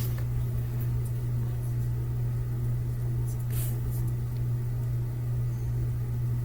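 Steady low electrical hum, with a brief soft rustle about three and a half seconds in.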